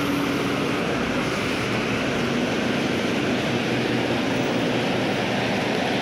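Steady city street noise: the running of traffic and engines on a wet road, without any single event standing out.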